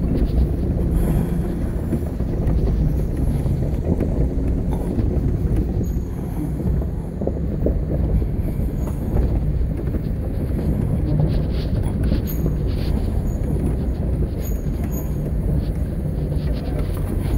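Jeep driving slowly over a dirt trail, heard from inside the cab: a steady low engine and drivetrain rumble with occasional light clicks and rattles.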